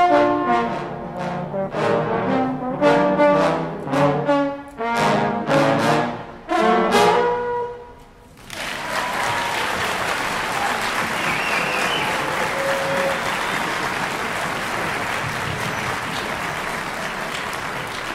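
A trombone ensemble plays the closing bars of a swing piece in short, detached chords, the last one ending about seven seconds in. The audience then breaks into steady applause.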